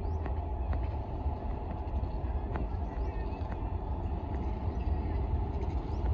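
Low rumble of an approaching freight train, slowly growing louder toward the end.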